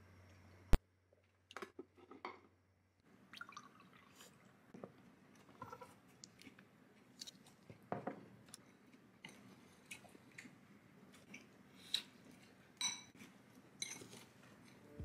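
Metal spoon and fork tossing a poke bowl of rice, chicken, avocado and vegetables: soft squishing of the food and light clinks and scrapes of the utensils against the bowl, coming irregularly every second or so. One sharp click just under a second in is the loudest sound.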